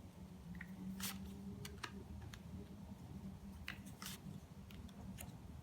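Tarot cards being handled and laid out on a table: a few scattered soft card snaps and taps over a low steady hum.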